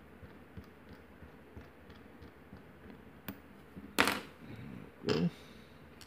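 Faint metal ticks of a lock pick and tension tool working inside a pin-tumbler lock cylinder, then two louder metallic clacks about four and five seconds in as the lock's metal parts are handled and set down.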